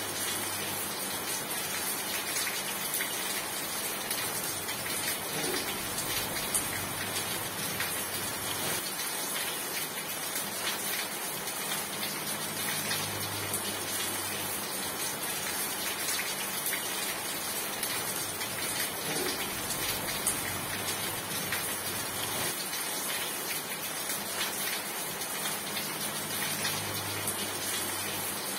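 Steady rain falling: an even hiss dense with the patter of drops. A faint low hum fades in and out a few times underneath.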